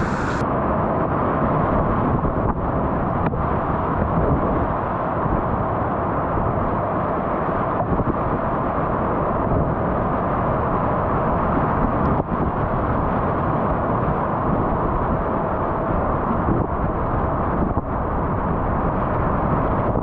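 Whitewater rapids rushing steadily around a kayak as it runs them, with a few brief knocks scattered through.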